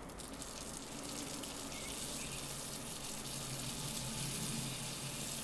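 Bacon strips sizzling steadily on a hot cast iron griddle plate over a low gas flame.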